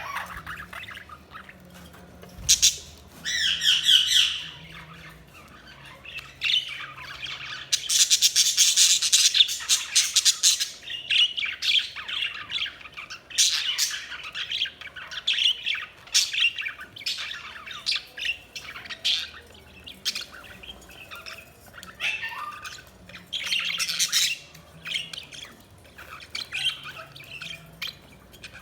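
Budgerigars (budgies) chirping, warbling and squawking: a run of short, high chatter that comes and goes, loudest in a long stretch of calling about eight seconds in.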